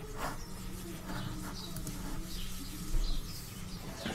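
Faint, short, high-pitched chirps, like small birds, over a low steady hum.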